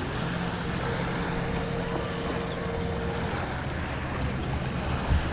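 A boat motor runs at a steady hum. Wind buffets the microphone and water washes against the hull.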